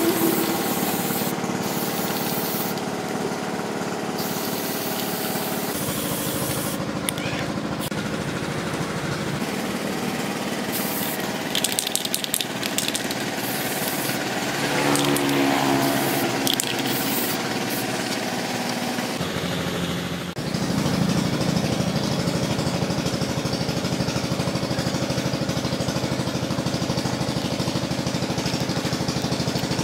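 Aerosol spray can hissing in short bursts as a finish is sprayed onto carved wood, over a steady engine-like hum that gets louder about two-thirds of the way in.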